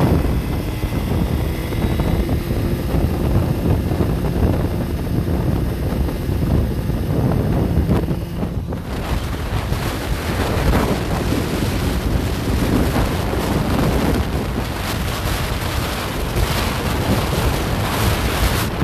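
Wind buffeting the microphone of a motorcycle riding at highway speed, with the engine and tyre noise underneath. After about nine seconds the wind rush grows fuller and comes in gusts.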